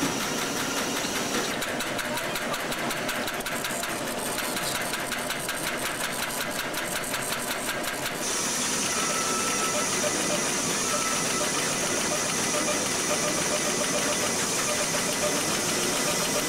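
Photo-lab machinery running: a steady mechanical din with a fast, even ticking through the first half. About eight seconds in, the ticking stops and the noise becomes a steadier hiss with a thin high whine.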